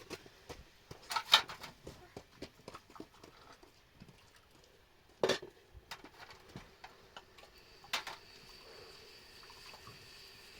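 Irregular light clicks and knocks, with three louder knocks about a second in, around five seconds in and near eight seconds; a faint steady tone comes in just before eight seconds.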